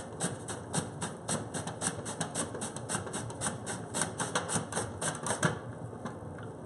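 Potato being pushed back and forth over a plastic V-blade mandoline slicer with a julienne insert, cutting it into shreds: a fast, even run of sharp slicing strokes, about five a second, that stops about five and a half seconds in.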